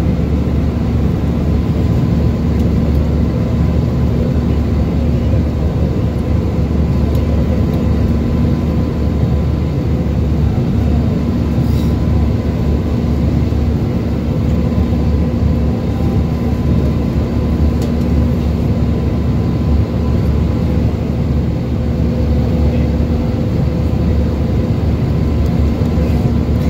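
Steady cabin drone of an Airbus A320 in climb, heard from a window seat over the wing: engine and airflow noise, deep and unbroken, with a faint steady hum running through it.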